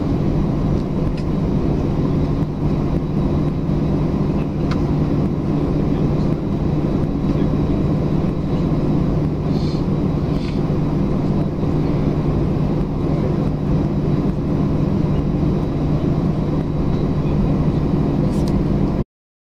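Airbus A320 cabin noise heard beside the wing: the jet engines running steadily at ground idle, a low even hum and rush. The sound cuts off abruptly near the end.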